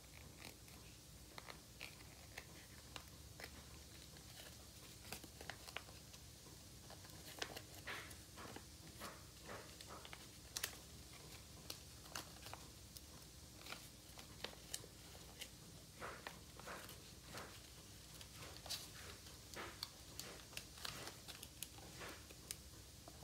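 Paper being folded and creased by hand: faint, irregular crinkling and rustling with small crisp clicks.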